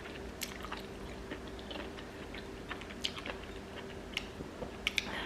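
A person chewing and slurping spicy ramen noodles and enoki mushrooms close to the microphone, with irregular wet smacking and clicking mouth sounds, a cluster of louder smacks near the end. A faint steady hum lies underneath.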